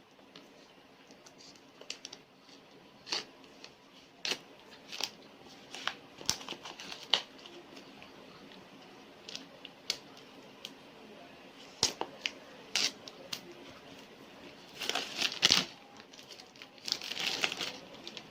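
Packaging of a hair clipper being handled and opened: scattered clicks and taps, with bursts of plastic or paper crinkling about fifteen and seventeen seconds in.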